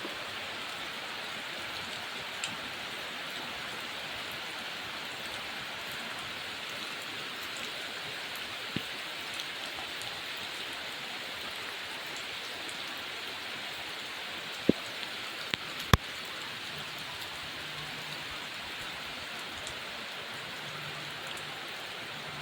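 Heavy rain falling steadily, an even hiss of drops on surfaces, with a few sharp louder taps, the loudest two close together near the middle. A faint low hum comes in toward the end.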